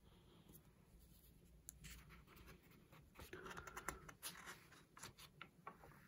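Faint rustling and light scraping of paper as the pages of a fragile old instruction booklet are handled and turned, busiest between about three and five seconds in.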